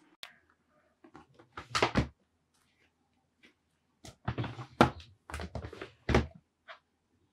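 A plastic storage drawer being pulled open and clothes handled: a few short scraping and shuffling noises with light clicks, in two clusters, the second one longer.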